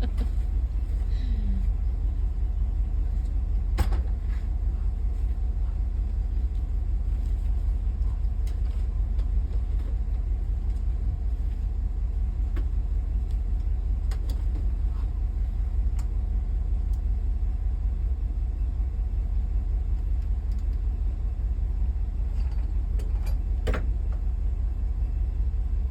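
Steady low rumble of a vehicle driving slowly over a rough road, heard from inside the cab, with a sharp knock about four seconds in and a couple of rattling clicks near the end.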